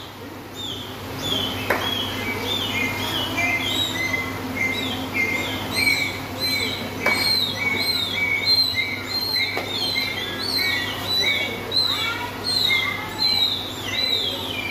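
Dolphin chirping in air, a string of short high chirps repeating about twice a second, over a steady low hum.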